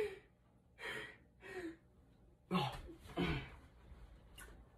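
A performer's breathy vocal sounds: four short gasps or heavy breaths in two pairs, with a gap between the pairs.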